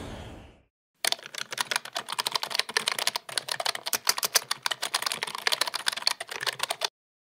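Rapid typing clicks, like fast keyboard typing, used as a sound effect as on-screen text is typed out. They start about a second in, pause briefly once midway, and stop shortly before the end. A music tail fades out in the first moment.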